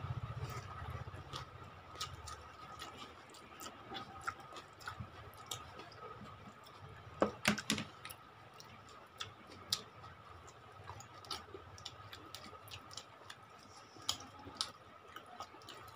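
Hand-eating sounds of rice and chicken curry: scattered soft clicks and smacks of chewing and fingers working the food, with a louder cluster of clicks about seven seconds in. A faint steady high hum runs underneath.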